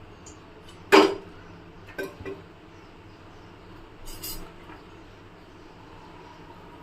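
Kitchen dishes and utensils clinking: one loud clink about a second in, two lighter knocks about a second later, and a short rattle around four seconds.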